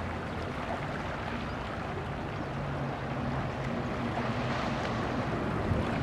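Shallow sea water washing over and between shoreline rocks, a steady rush of small waves, with a low steady hum underneath.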